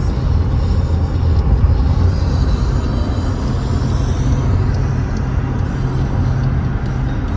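Steady low rumble of a car driving, with music playing over it.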